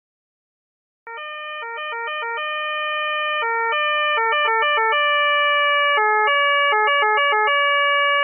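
Austrian police two-tone siren, switching between a higher and a lower tone, sometimes holding a tone for a second or more and sometimes flicking back and forth quickly. It starts about a second in and grows louder over the next few seconds.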